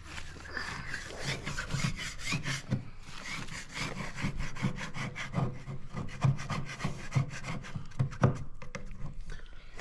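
Hand tool rubbed over a wooden drawer in many short, irregular strokes, working off old finish softened by paint stripper.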